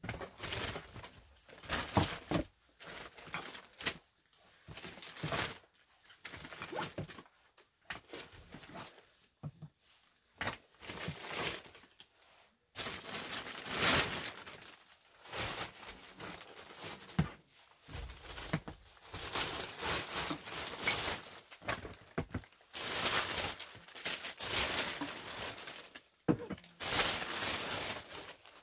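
Thin plastic carrier bags rustling and crinkling in irregular bursts as groceries are unpacked, with tins and glass jars set down on a counter in occasional soft thunks.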